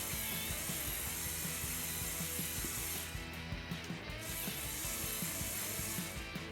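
Motorized Lego Technic tow truck driving, its motor running steadily while its plastic gears clatter with rapid small clicks.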